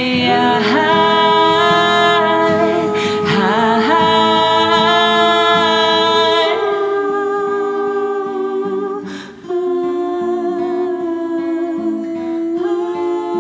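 Music: wordless sung or hummed vocals holding long notes in layered harmony, with a brief dip about nine seconds in.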